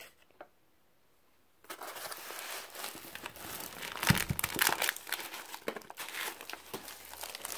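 Packaging being handled and crinkling during a laptop unboxing: after a quiet start, a dense run of crinkling and sharp crackles begins about two seconds in and goes on, with louder snaps in the middle.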